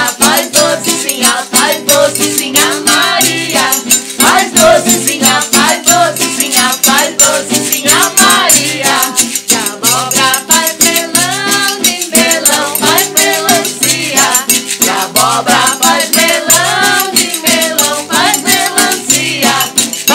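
A song played on strummed acoustic guitar with a wooden shaker rattling a steady fast rhythm and a triangle, with voices singing along.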